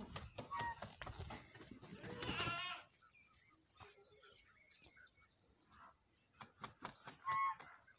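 Goats bleating: one long wavering bleat about two seconds in, and short calls near the start and near the end, with scattered light knocks between them.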